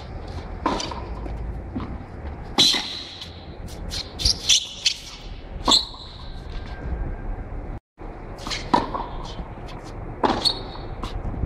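Tennis rally on a hard court: sharp racket strikes and ball bounces come every second or two, some with a short ping from the strings.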